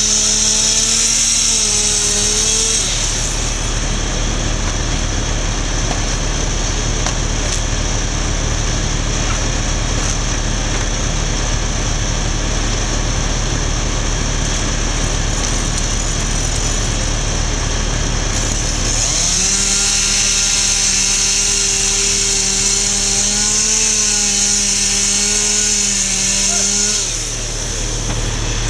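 Gas-powered saw running at high revs and cutting, with a steady engine tone at the start and again in the second half, and a rougher stretch between them. A constant low engine hum runs underneath.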